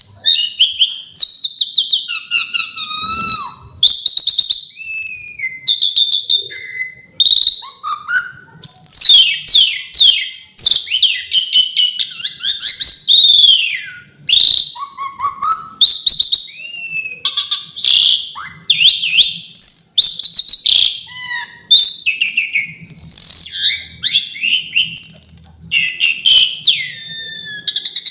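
Asian pied starling (jalak suren) singing a long, varied song packed with mimicked phrases: quick whistles, rising and falling glides and chirps follow one another with only brief gaps.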